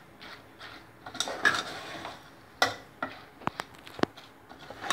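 Steel spoon stirring a sticky mixture of fried dal and boondi in jaggery syrup inside an aluminium pot. It scrapes and knocks against the pot in irregular clicks, with a few sharper knocks in the second half.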